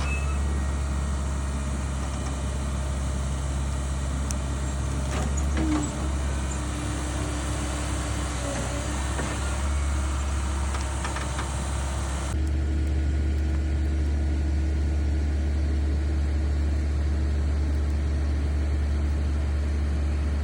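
Excavator's diesel engine running steadily, with a few scattered clicks and knocks in the first half. About twelve seconds in, the sound abruptly turns duller, with the low engine note stronger.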